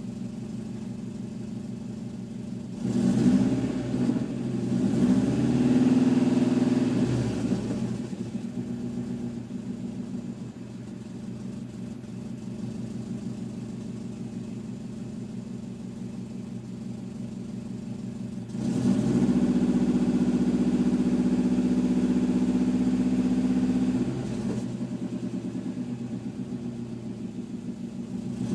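Subaru Impreza WRX's turbocharged EJ20 flat-four idling, revved in a few short blips a few seconds in, then held at a steady higher speed for about five seconds past the middle before dropping back to idle. Its fuel trims show it running very rich at idle and leaning out under throttle, which the owner takes for a bad O2 sensor or an exhaust leak.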